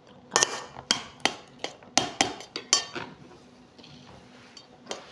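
Metal utensils clinking against dishes: a quick run of about seven sharp clinks, some with a short ring, over the first three seconds, then quieter, with one more clink near the end.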